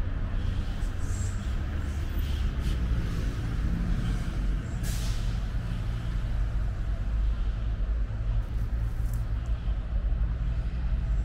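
Steady low rumble of a motor vehicle's engine running close by, with a short hiss about five seconds in.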